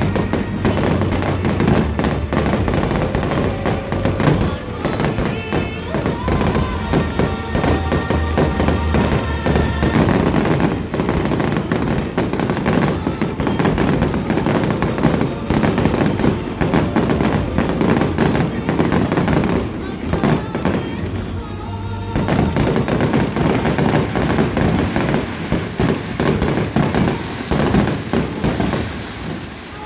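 Fireworks display: a dense, continuous barrage of shells bursting in rapid bangs and crackles, easing briefly about two-thirds of the way through before building again. Music plays underneath.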